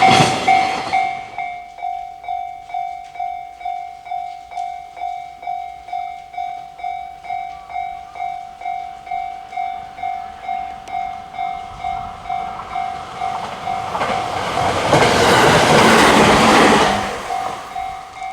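Japanese railway level-crossing warning bell ringing at about two strokes a second. A passing train fades out in the first second, and another train passes loudly about fifteen seconds in while the bell keeps ringing.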